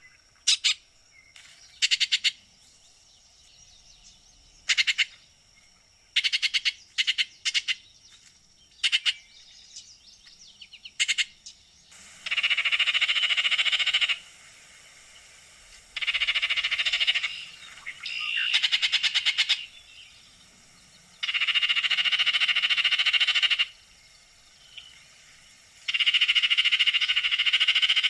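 Baltimore oriole giving chatter calls: short bursts of dry, rapid notes for the first half, then about five longer rattles of around two seconds each.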